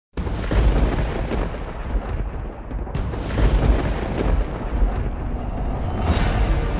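Dramatic intro sound effects: a deep, thunder-like rumble that starts suddenly, with heavy booming hits about three seconds in and again near the end.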